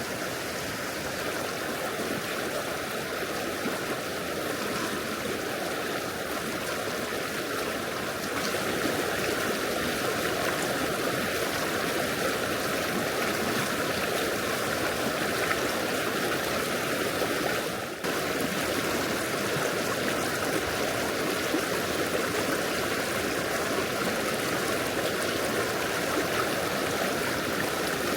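River water flowing, a steady rushing sound, a little louder after about eight seconds, with a brief drop about eighteen seconds in.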